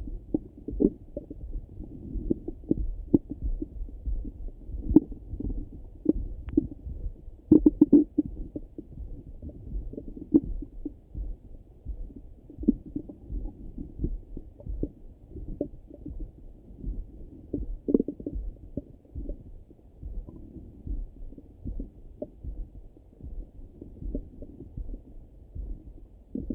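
Stomach and bowel sounds heard through a stethoscope on the belly: irregular, muffled gurgles and small pops. There is a louder bout of gurgling about eight seconds in and another about eighteen seconds in.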